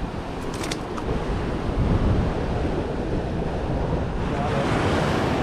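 Sea surf washing against jetty rocks, with wind buffeting the microphone; the wash swells louder near the end. A few light clicks about half a second in.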